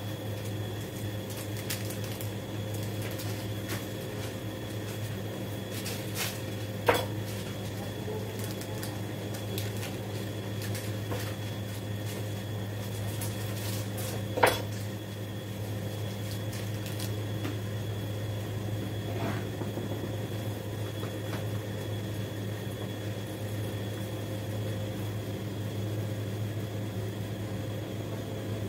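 Steady low hum with a faint hiss in a kitchen while a covered stainless steel pot of chicken cooks on a gas stove. Two sharp metallic clicks break it, one about seven seconds in and one about halfway through.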